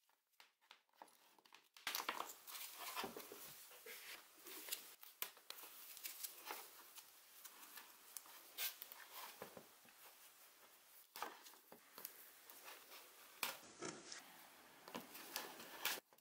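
Gloved hands handling and working the wires of an electric drill's power cord: rubbing, rustling and scraping of cable insulation and glove, with many small clicks. It starts about two seconds in and stops abruptly near the end.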